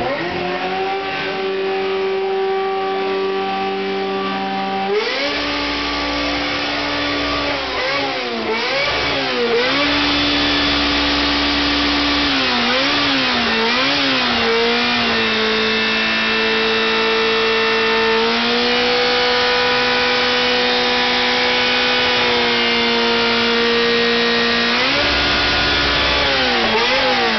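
Ferrari Spider's engine revved and held at high rpm. It steps up about five seconds in, gets several quick throttle blips, holds steady again, then drops back near the end.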